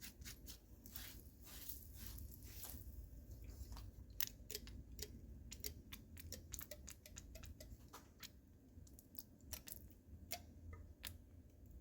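Faint, irregular clicks, taps and scrapes of hand tools and metal engine parts being handled during an engine teardown.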